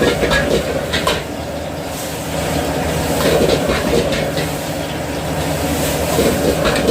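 Restaurant wok cooking on a high-flame burner: the burner's steady rumble with hissing, and scattered short clicks and clatters of a ladle against the wok.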